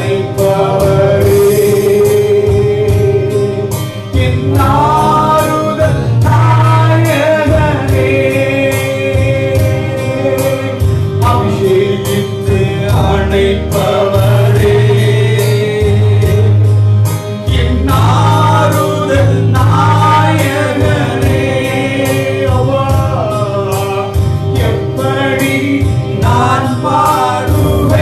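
Christian worship song: a man singing into a microphone over electronic keyboard accompaniment with a held chord, a bass line and a steady beat.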